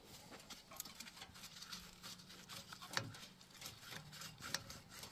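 Faint scraping, rubbing and clicking of hands and tools on parts in an old Opel truck's engine bay, with a faint low buzz coming and going in the middle.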